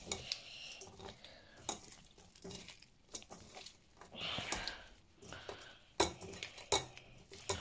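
Hands mixing raw prawns in a wet spice marinade in a stainless steel colander: soft irregular squelches with light clicks and taps against the metal, a couple of sharper clicks near the end.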